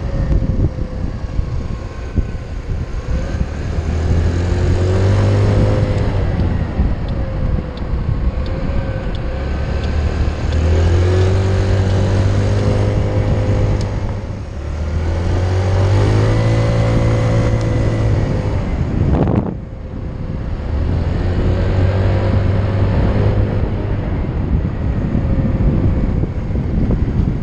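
A small motor scooter's engine running while it is ridden along the road. The engine note rises and settles again about four times as the rider opens and eases the throttle.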